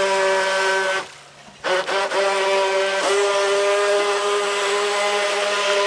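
Radio Ranger RC fishing boat's motor whining steadily at a high pitch under throttle. It cuts out for about half a second about a second in, then runs again.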